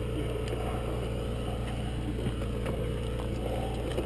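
A steady low mechanical drone, like a motor running without change, with a few faint clicks and knocks over it.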